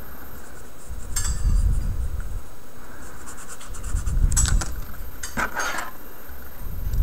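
Felt-tip markers being handled: small clicks and clinks in three quick clusters, about a second in and twice more after four seconds, over low rumbling handling noise.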